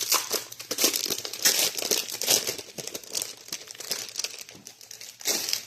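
Packaging wrap crinkling and crackling as it is handled and torn open around board-game punchboards.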